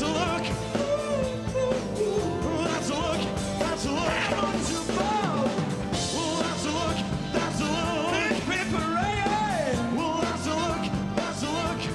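Male vocals sung live into handheld microphones over an upbeat pop-rock backing with a steady beat.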